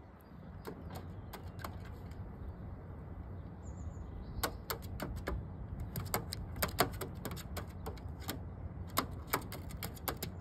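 Hooded crow's claws clicking on a sheet-metal parapet cap as it walks: a run of sharp, irregular ticks starting about four seconds in, over a low steady rumble.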